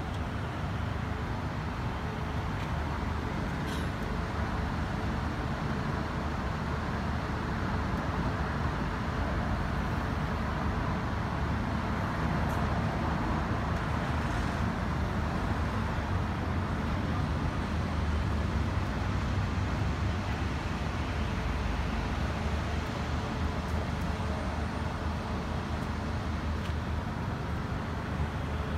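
Steady road traffic noise: a continuous rumble and hiss of cars passing on the surrounding roads.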